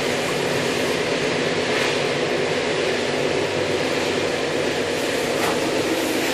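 Steady running noise of a moving passenger train heard from inside the carriage: an even rumble of the wheels on the track and the coach around them, with no change in level.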